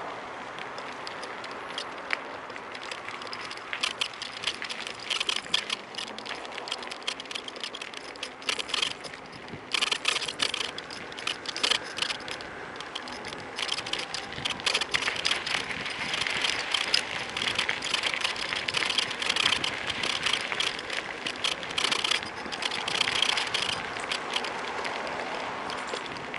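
A phone holder on a Kugoo V1 Plus electric scooter creaking and rattling in irregular clusters of sharp clicks as the scooter rides over the road surface, over a steady hiss of tyre and wind noise. The clicking grows louder and denser a few seconds in and comes in bursts.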